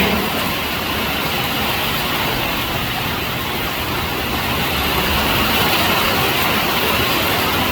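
Heavy rain pouring in a storm with strong wind, a steady, even rush of noise.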